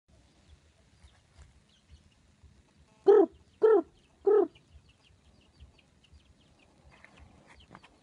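An animal calls loudly three times in quick succession, each call short and pitched, about half a second apart, with faint high chirps scattered around them.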